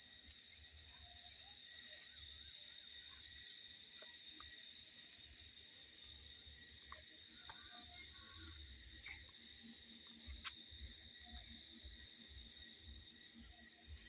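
Faint outdoor ambience of insects: a steady high buzz with a regular short chirp repeating a little under twice a second, over an uneven low rumble.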